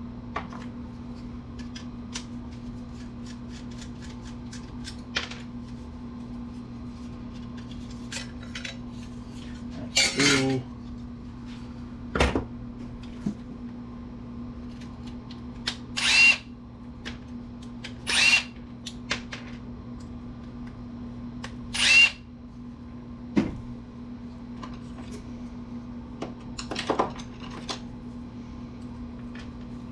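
Several brief whirs of a handheld power tool, each under a second, about seven in all, among light clicks and clatter of metal and plastic computer parts, over a steady low hum.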